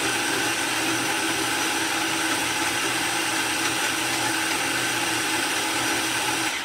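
Electric mini food chopper running steadily, blitzing a spice paste, with a constant motor whine and hum; it cuts off abruptly at the very end.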